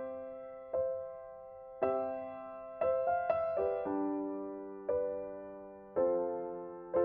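Slow, soft background piano music: chords struck about once a second, each left to ring and fade.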